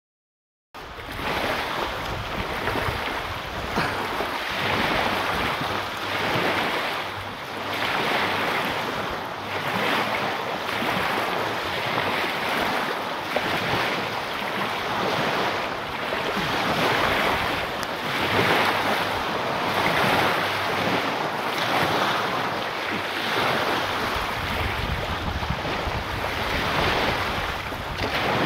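Surf breaking and washing up the beach, rising and falling in slow surges, with wind buffeting the microphone.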